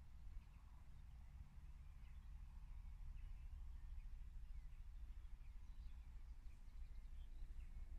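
Faint open-field ambience: a few scattered, distant bird chirps over a steady low rumble.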